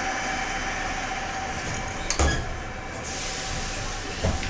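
Doors of an 81-71 metro car slamming shut with one sharp bang about two seconds in, over the steady hum of the standing train. Two smaller knocks follow near the end.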